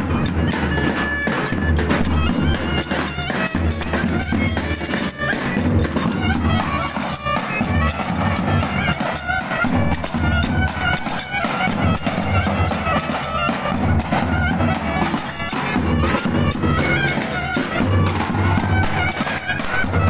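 Live Turkish folk dance music from a street band: several davul bass drums beat a steady dance rhythm under a clarinet and a trumpet playing the melody.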